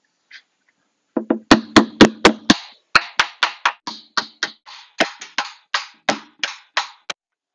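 Hammer striking a bulkhead fitting in the drain hole of a concrete bowl, about four quick blows a second, starting about a second in. The first blows are heavier, the later ones lighter taps. The blows widen a tight hole so the fitting will seat.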